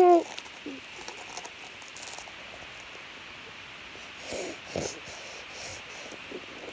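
A person's mouth sounds while chewing a mouthful of spicy chips with lips closed: a few faint clicks, then a couple of short muffled moans with breathy puffs about four to five seconds in, over a steady low hiss.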